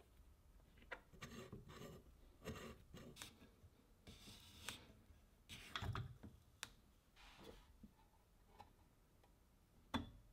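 Faint handling sounds of the restored 1929 Alexanderwerk grater's metal parts being assembled: small clicks, scrapes and rubbing as screws, washers and the clamp frame are picked up and fitted, with a dull knock about six seconds in.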